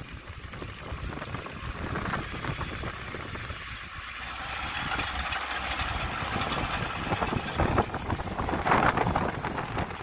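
Small crawler bulldozer's diesel engine running under load as it pushes soil, with clattering from the machine. It gets louder from about halfway, with a few sharper clatters near the end.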